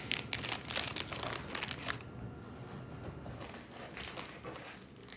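Snack packaging crinkling and rustling as it is handled, a busy run of quick crackles in the first two seconds, then fainter, scattered rustles.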